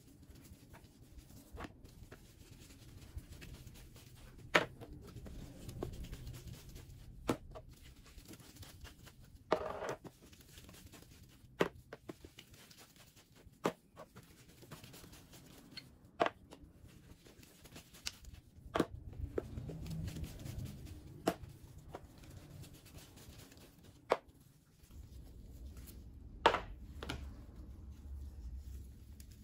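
Lidded plastic tubs being handled, wiped with a cloth and set down one after another on a table: a sharp plastic click or knock every two to three seconds, with soft rubbing and handling noise in between.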